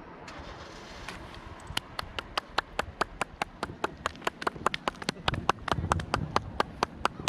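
Hands clapping in a quick, even rhythm, about five claps a second, starting a little under two seconds in.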